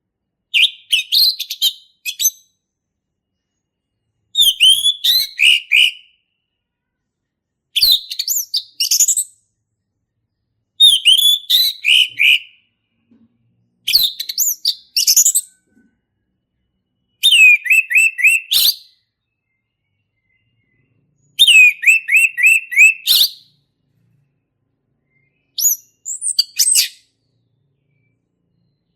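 Male orange-headed thrush singing: eight loud, varied phrases of quick whistles and trills, each one and a half to two seconds long, with short pauses between them.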